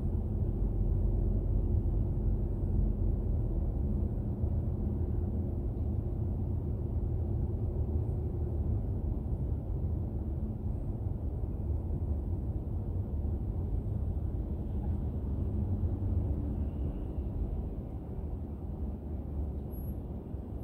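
Car driving, heard from a dashcam inside the cabin: a steady low rumble of engine and tyre noise, dropping a little in level for the last few seconds.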